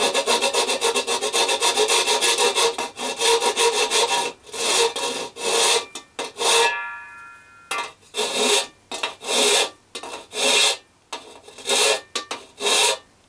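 A hand file rasping along the edge of a cut-out panel opening in a metal R2-D2 dome, taking off the small notches left by the cut links. The strokes are quick and close together for the first few seconds, then slower, about one a second. About six and a half seconds in, the dome rings briefly with a fading metallic tone.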